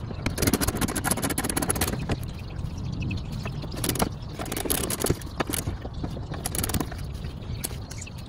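Wind rumbling across the microphone, with scattered clicks and scrapes of a hand tool working the T25 Torx screws of a wheel-arch liner.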